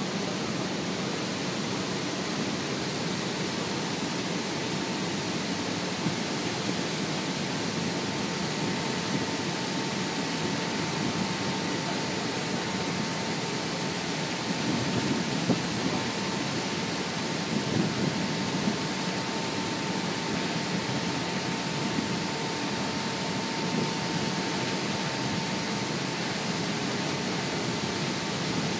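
Steady noise of a boat under way: the engine's drone mixed with the rush of water from its wake and wind, with a faint steady whine for much of it.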